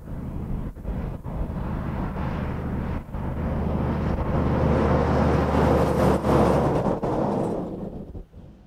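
Mack road train with two tanker trailers driving past at highway speed: a steady diesel engine note with tyre and road noise that builds as it nears, is loudest a few seconds in, then fades away near the end.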